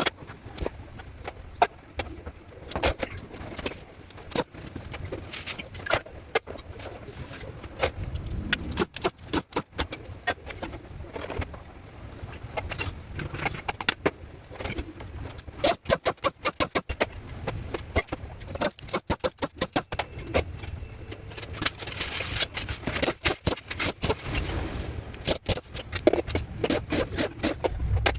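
Metal tools and engine parts clinking and scraping, many sharp clicks in irregular clusters.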